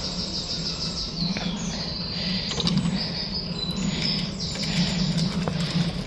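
Songbirds chirping and trilling in short, repeated high phrases, over a steady low hum.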